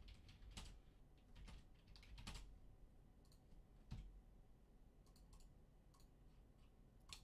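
Faint typing on a computer keyboard: scattered, irregular key clicks.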